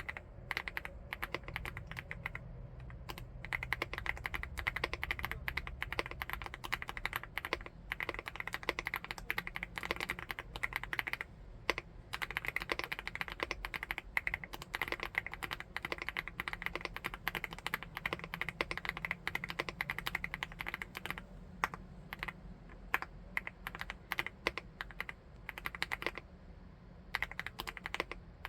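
Fast, continuous typing on a 75%-layout full-aluminium keyboard, the keystrokes coming in quick runs with a few brief pauses.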